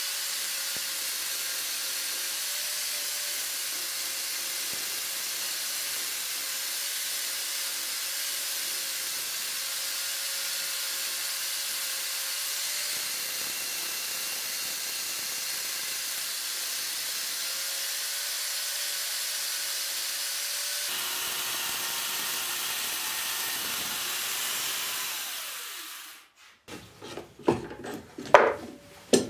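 Angle grinder with a chainsaw bar attachment running steadily while its chain cuts into the end grain of a log stump. It dies away about 26 seconds in, followed by a few sharp knocks and clunks as the bar clamp holding the log is adjusted.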